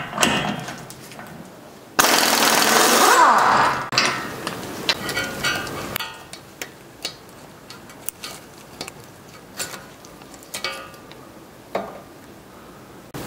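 Pneumatic impact wrench hammering for about two seconds, loosening the front axle nut, starting about two seconds in. After it come scattered small metallic clicks of hand tools: pliers and a pick working at the ball joint nut.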